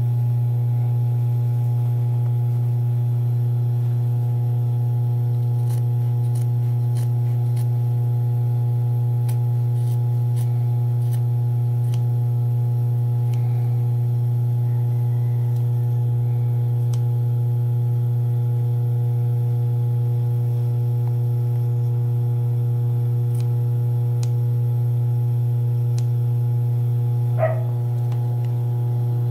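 Scissors snipping through coat fabric in faint scattered cuts over a steady electrical hum with a low buzz, and one sharper click near the end.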